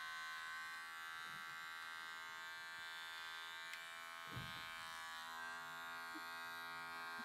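Cordless dog grooming clippers running steadily with a quiet electric buzz while trimming the fur around a Bedlington terrier's mouth. A brief soft bump about four seconds in.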